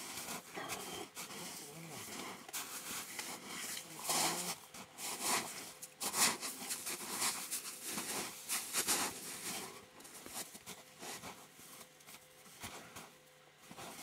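Irregular rustling and crunching as dead geese are picked up and laid out on the snow, in uneven bursts with no steady tone.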